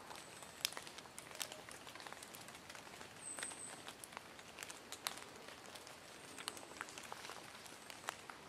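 Quiet woodland with many scattered, irregular light ticks and taps, and a brief high-pitched chirp about three seconds in.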